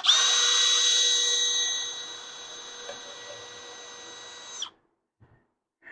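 Cordless drill running at a steady speed with a motor whine, loud for about two seconds, then much quieter until it stops just before the five-second mark.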